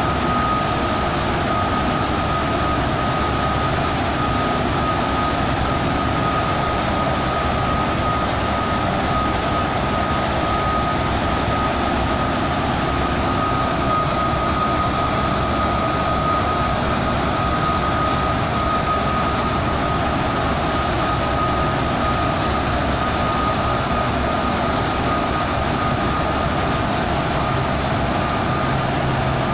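Steady cabin noise of a bus driving through a road tunnel: tyre and engine noise that does not let up, with a thin steady high whine running through it.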